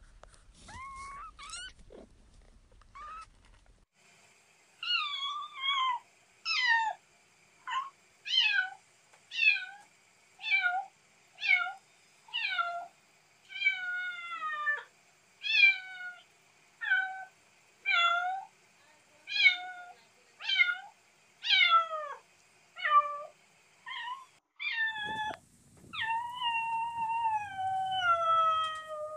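Kittens mewing over and over: high-pitched calls that fall in pitch, about one a second, then a few longer drawn-out mews near the end.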